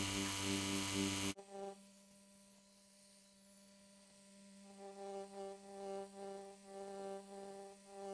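A tattoo pen machine buzzing steadily, cutting off abruptly just over a second in. After a near-silent stretch, soft background music of slow, pulsing sustained tones comes in about halfway through.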